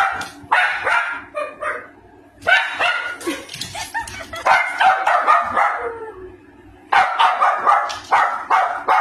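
Small Maltese dog barking and yipping in quick runs, with two short pauses, about two seconds in and about six seconds in.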